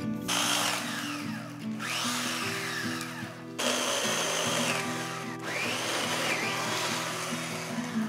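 Chainsaw running in two long bursts, the first about three seconds long and the second starting just past halfway, its pitch rising and falling as the throttle is worked. Background music plays steadily underneath.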